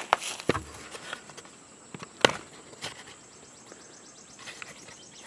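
Hands tucking landscaping fabric into a freezer cabinet: scattered knocks and rustles against the liner, the loudest about two seconds in. A steady high insect drone runs underneath.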